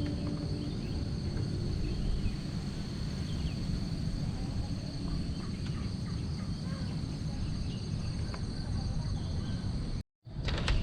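Outdoor ambience of insects making a steady high-pitched drone, over a constant low rumble, with a few faint short bird chirps. It cuts out abruptly near the end.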